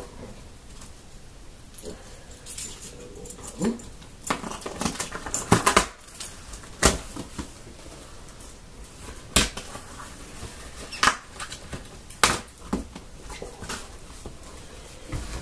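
Cardboard box and packaging being handled and opened: a run of crinkly rustling for a few seconds, then separate sharp knocks and taps every second or two.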